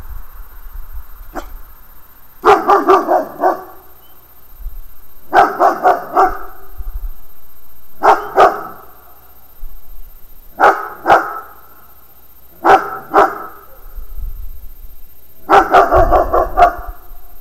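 A dog barking in repeated bursts of two to four barks, about every two to three seconds.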